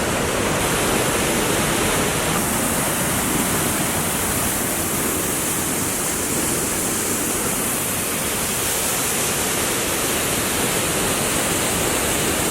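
Large waterfall crashing into its plunge pool: a loud, steady rush of water.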